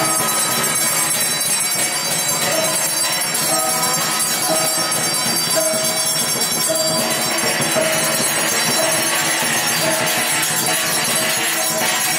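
Dense, continuous ringing of bells and clashing percussion music, with a short note repeating about once a second.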